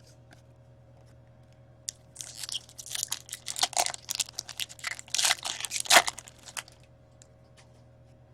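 Foil trading-card pack wrapper being torn open and crinkled: a few seconds of dense crackling and tearing that peaks just before it stops.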